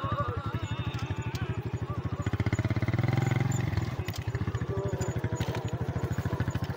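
Motorcycle engine running under way, a steady fast pulsing. It gets louder about two seconds in and drops back a little before four seconds in.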